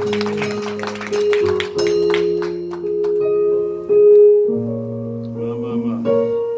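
Keyboard playing slow, held chords that change every second or two.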